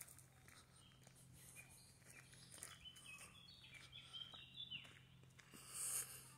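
Faint outdoor quiet with a small bird chirping, a run of short high notes in the middle, over soft steps on a gravel path; a brief hiss near the end.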